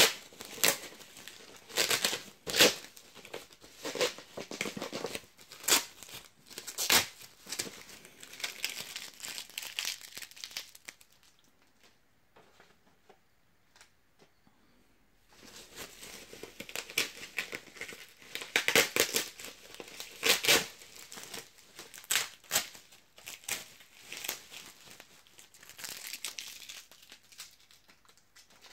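Plastic bubble wrap crinkling and tearing as it is pulled off a boxed vinyl figure, in bursts, with a pause of a few seconds midway.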